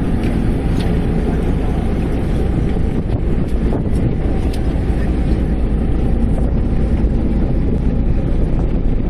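Fishing boat underway: a steady low engine drone mixed with wind buffeting the microphone.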